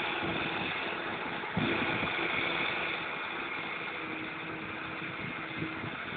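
Claas Jaguar self-propelled forage harvester at work, chopping grass for silage and blowing it into a trailer alongside, with its tractor: a steady engine and machinery drone with a constant hum and hiss, growing slightly fainter as the machines move away.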